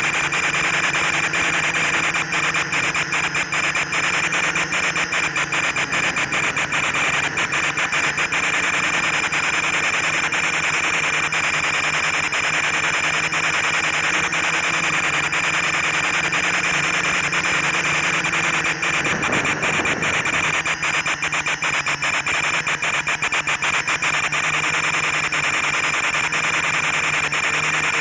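Quadcopter's electric motors and propellers running with a steady high whine, heard through the FPV video link's audio with frequent crackles of interference.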